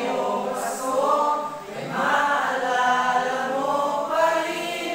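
A group of young male voices singing together in a sustained, slow Tagalog Christmas song.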